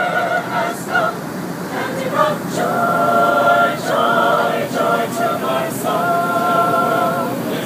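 Mixed choir of men's and women's voices singing a cappella inside an airliner cabin, holding long chords. The last chord cuts off near the end.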